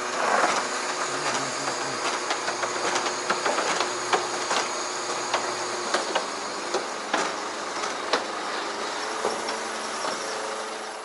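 Truck driving slowly, its engine humming steadily under a hiss, with frequent irregular clicks and rattles from the cab and body.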